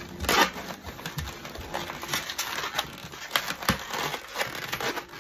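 Latex 260 modelling balloon (Sempertex) rubbing and squeaking under the fingers as it is squeezed and twisted into a flower petal: a run of irregular crackles and squeaks, the sharpest about a third of a second in.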